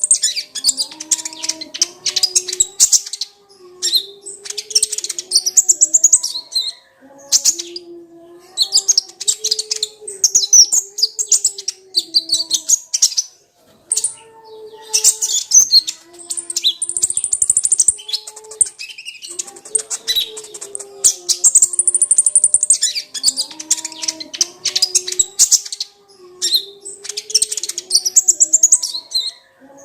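Kolibri ninja, a small sunbird, singing a fast, high-pitched chirping song in bursts of one to three seconds separated by short pauses.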